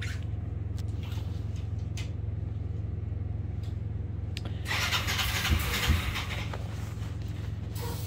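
A low, steady engine hum, with a few light clicks, and a loud rushing noise from about five seconds in until nearly eight seconds.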